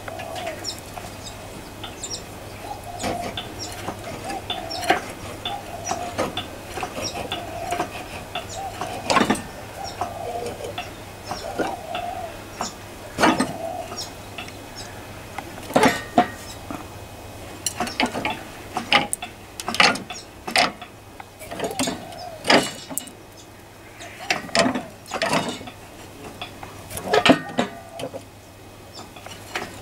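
Hand hoist lifting the cast-iron cylinder head off a CS Lister diesel engine: irregular ratchet clicks and metal clanks, coming faster in the second half.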